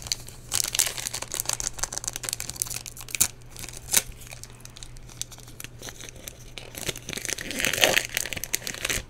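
Foil booster pack wrapper crinkling in the hands and being torn open, with dense scattered crackles and a louder rustle a little before the end.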